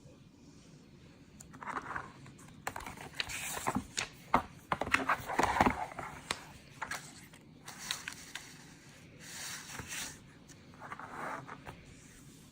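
Hands working a sheet of magnetic viewing film over a tablet cover: irregular scraping and rustling with small sharp clicks and taps, the busiest stretch in the middle.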